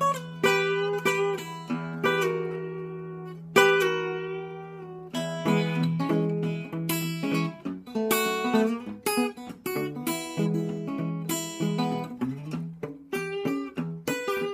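Small-bodied acoustic guitar played fingerstyle with a thumbpick, in old-time blues style: a bass note held under picked melody notes, with one sharp accent about three and a half seconds in.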